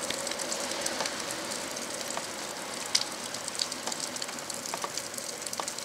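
A passing locomotive-hauled train running steadily and fading as it draws away, its hum thinning out over the first second or two. Irregular crackling clicks and a steady hiss run over it.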